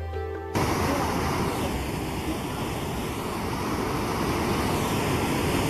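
River rapids: whitewater rushing over boulders as a loud, steady rush of water that starts abruptly about half a second in.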